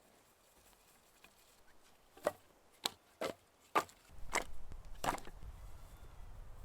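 Axe striking wood: five sharp knocks at uneven half-second gaps, starting about two seconds in. A low rumble comes in from about four seconds.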